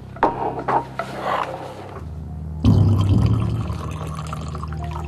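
Coffee poured from a carafe into a cup. The pour starts suddenly and loudly a little past halfway, then runs on more quietly.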